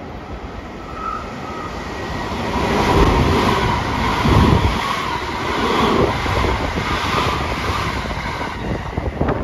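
JR West 223 series electric train on a rapid service passing close by, not stopping. Its noise builds over the first few seconds as it approaches, then stays loud as the cars run past.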